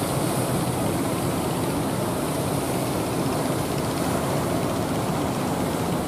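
Steady rushing noise of rough sea surf and wind, with no distinct event standing out.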